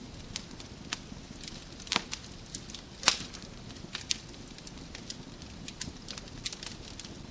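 Wood fire crackling in a fireplace: irregular sharp pops and snaps over a low steady rustle of the flames, with the loudest pop about three seconds in.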